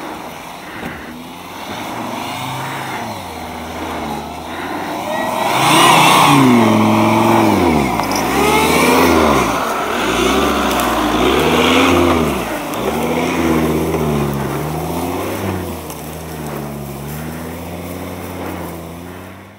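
Jeep Grand Cherokee's engine working under load over rough off-road ground, revving up and falling back again and again, loudest in the middle stretch. The sound cuts off suddenly at the end.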